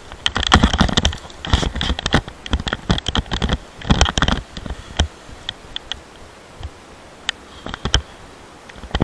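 Wind buffeting the microphone with the nylon of a paraglider wing crackling and rustling as it fills and collapses. Dense clusters of crackles come in the first half, then scattered single crackles.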